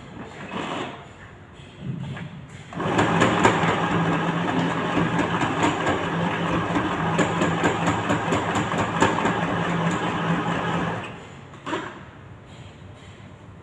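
Sewing machine running steadily while stitching a seam, starting about three seconds in and stopping near the end. There are a few light knocks of handling before and after the run.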